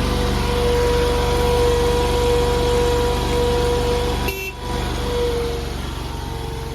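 Mini skid steer's engine running steadily with a high, even whine. A brief break comes about four seconds in, and after it the machine runs on a little quieter.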